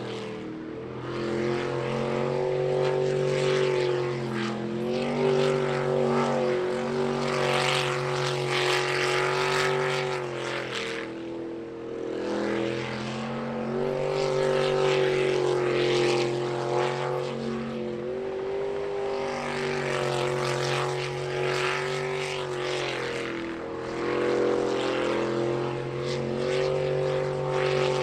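Jet sprint boat engine racing hard, its note dropping and climbing again every few seconds as the boat runs the turns of the course, over the hiss of the jet's spray.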